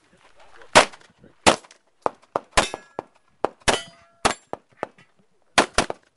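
A semi-automatic pistol firing a string of shots, mostly single shots about a second apart, with a quick pair near the end. Steel targets clang and ring briefly after some of the hits.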